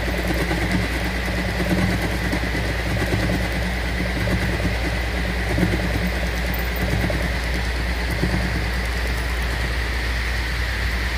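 Horizontal milling machine running, its spinning toothed cutter milling weld build-up on a steel part. A steady high whine sits over a low hum, with no breaks.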